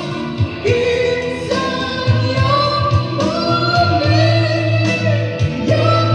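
Background music: a song with a sung vocal melody over a steady bass line.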